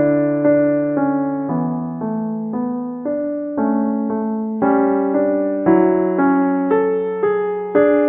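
Instrumental piano music: chords and bass notes struck about twice a second, each ringing and then fading before the next.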